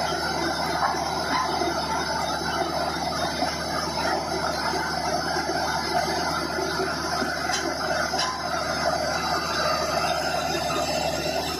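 Horizontal directional drilling rig running steadily: its engine and hydraulics make a continuous mechanical drone with steady tones running through it.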